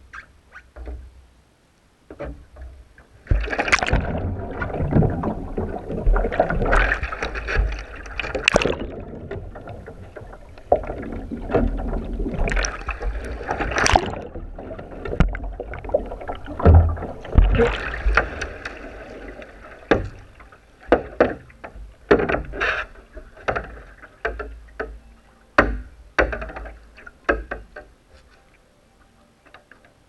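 A sea kayak capsizing and rolling back upright: loud churning and splashing water from about three seconds in, with muffled rushing and bubbling while the deck-mounted camera is underwater. In the second half this gives way to a string of short, sharp splashes and drips as the kayak comes up, fading near the end.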